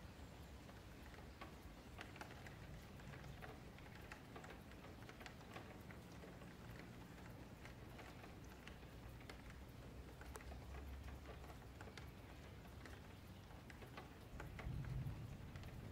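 Faint, irregular clicking of a computer mouse and keyboard over a low room hum, with a brief low rumble near the end.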